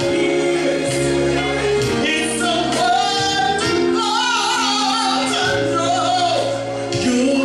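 A woman singing into a microphone over backing music with steady bass notes and held chords. She holds long, wavering notes.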